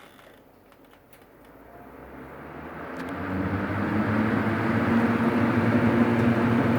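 A motor vehicle going past: a low engine hum builds over a few seconds, holds loud, then starts to die away near the end.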